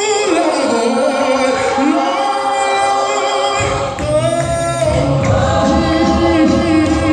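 Gospel choir singing in harmony, with a deep bass line coming in about halfway through.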